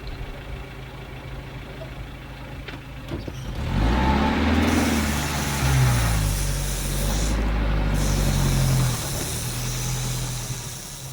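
A motor vehicle's engine running at a steady low note, then growing louder from about three and a half seconds in, its pitch rising and falling as it revs, before easing off near the end.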